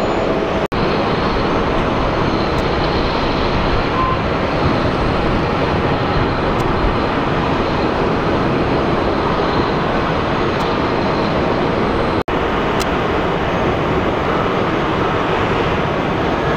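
Jet airliner engines heard as a steady, dense rushing noise. The sound drops out abruptly for an instant twice, about a second in and about twelve seconds in.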